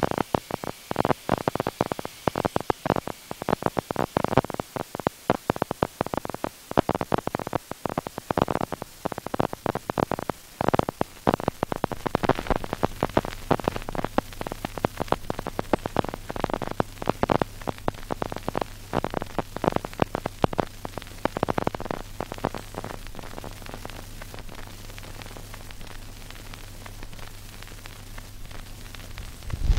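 Generated ambient noise from a Raspberry Pi noise toy: dense, irregular static-like crackling over a faint hiss. About twelve seconds in a steady low hum joins, and the crackling thins out in the last few seconds while the hum continues.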